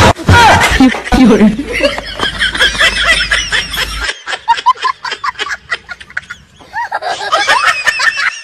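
A man's yell as he jerks back from the switch, then snickering laughter all through.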